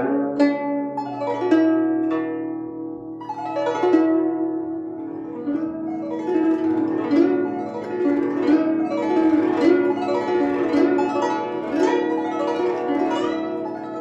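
Guzheng, a 21-string Chinese zither, plucked in a continuous flowing passage of ringing, overlapping notes.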